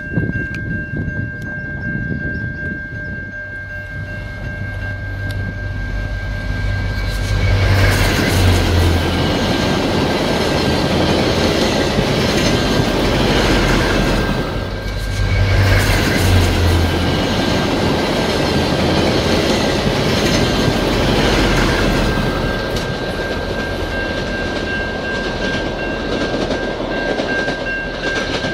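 Via Rail F40PH-2 diesel locomotive approaching a level crossing, sounding its horn in two long stretches with a short break between them, its engine and wheels getting louder. A steady ringing tone of the crossing signal bell runs underneath.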